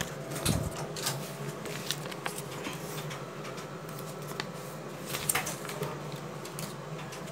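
Steady low machine hum at a cash machine (ATM), with scattered light clicks and the handling of a paper receipt slip; a couple of sharper clicks stand out about half a second in and again about five seconds in.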